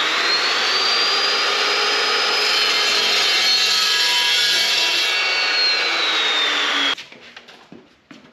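Evolution metal-cutting chop saw running and cutting through a small piece of square tubing: a loud whine that rises as the motor spins up, holds steady through the cut, then sags in pitch. The sound stops abruptly about seven seconds in, leaving a few faint knocks.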